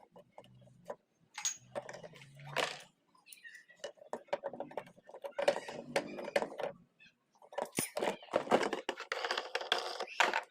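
Irregular clicks, knocks and scraping of flush-tank fittings being handled and fitted, busiest in the second half.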